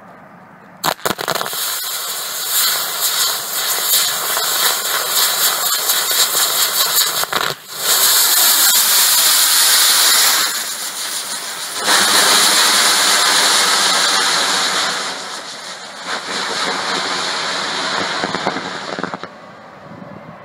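Girandola firework: its ring of rocket drivers catch with a few sharp cracks about a second in, then run as a loud, dense hiss while the wheel spins and lifts. The hiss dips briefly about seven and a half seconds in, surges and sags a couple of times after that, and dies away near the end.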